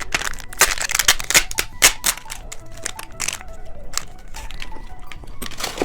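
Plastic candy wrapper crinkling and crackling as it is handled and opened, in many sharp, irregular crackles.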